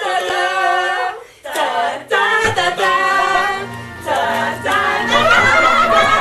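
A group of voices singing together in chorus, with long held notes and a couple of short breaks. A low steady tone comes in about two and a half seconds in.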